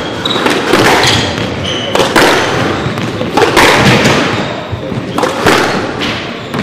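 Squash rally: the ball is struck by rackets and hits the walls and floor in a series of sharp cracks, about one every second, each echoing in the court. Between the hits come short high squeaks of shoes on the wooden floor.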